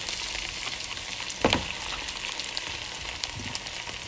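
Chopped onions and green peppers sizzling in hot oil in a frying pan while chunks of eggplant are added. There is a single louder thump about one and a half seconds in.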